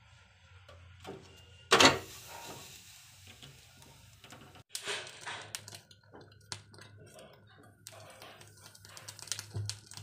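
Gas-stove burner flame with scattered small clicks and crackles as a plucked quail is held in it to singe off the remaining feathers. There is one sharp louder burst about two seconds in.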